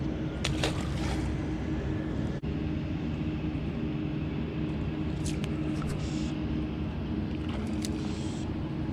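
Steady low motor drone with a constant hum, broken by a few short sharp clicks.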